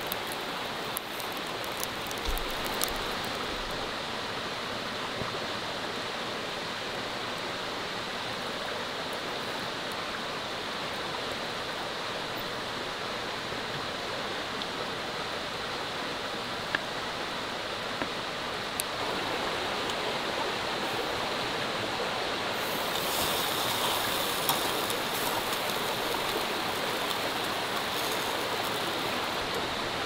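Steady rush of running water, like a forest stream, getting a little louder and brighter about two-thirds of the way through.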